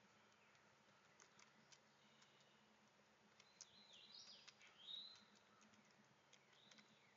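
Faint bird calls: a few slurred notes that rise and then level off, clustered around the middle, with scattered short ticks or chips.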